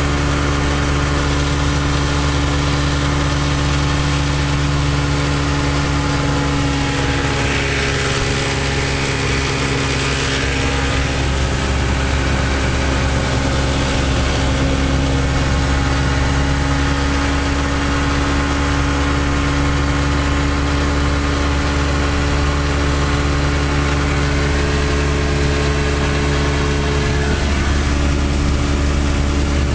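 1956 Johnson 30 hp Javelin outboard, a two-cylinder two-stroke, running steadily under way at cruising speed. A hissing rush rises over the motor about 7 to 12 seconds in.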